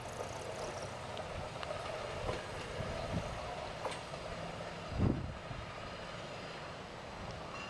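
Hi-rail pickup truck running away along the rails, a steady rumble with a few short clicks from its rail wheels. A low thump comes about five seconds in.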